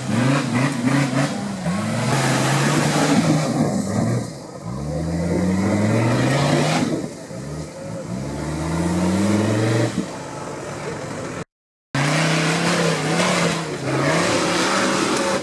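Off-road competition vehicle's engine revving hard again and again, its pitch climbing and falling in repeated sweeps as it works up a steep dirt slope. The sound drops out briefly about twelve seconds in.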